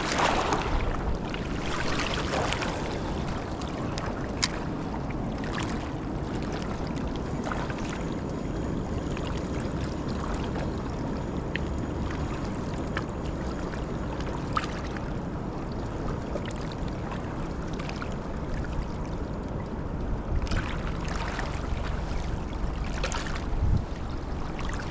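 Steady rushing of the fast-flowing Niagara River, with a few faint clicks.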